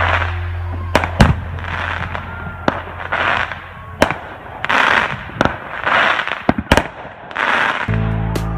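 Aerial fireworks going off: sharp bangs of shells bursting every second or two, with swells of hissing crackle between them. Music comes back in near the end.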